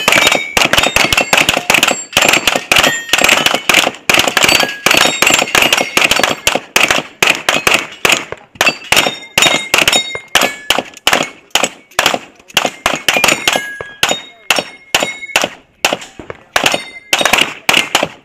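Several handguns firing rapid, overlapping shots at steel plate targets, with many hits ringing the steel. The shooting thins to scattered shots towards the end.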